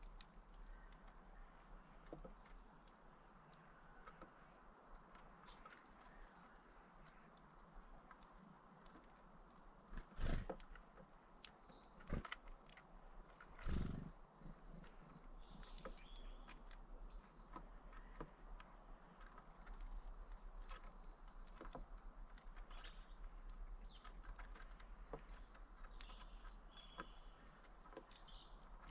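Small birds chirping with short high calls, mixed with light tapping and pecking clicks. Three louder knocks come near the middle.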